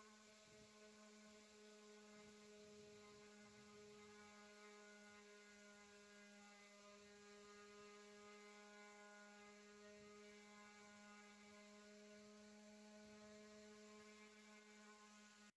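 Electric random orbital sander running against a wooden record-player case, heard faintly as a steady motor hum with a light hiss.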